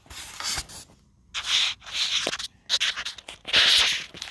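Styrofoam packaging rubbing and scraping as the box and tray are handled: about five short scratchy rubs, the loudest near the end.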